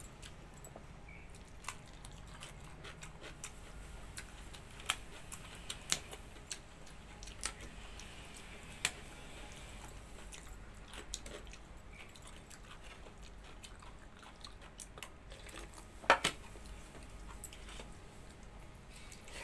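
A person eating with her fingers: faint chewing and mouth smacks with scattered sharp clicks, the loudest a double click about 16 seconds in.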